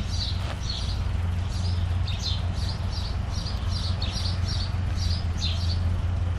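Small bird chirping over and over, about two short chirps a second, over a steady low hum.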